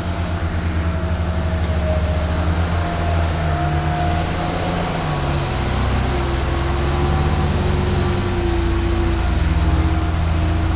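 Diesel engine of a heavily loaded tronton truck running steadily, with a thin whine above it that wavers slightly in pitch.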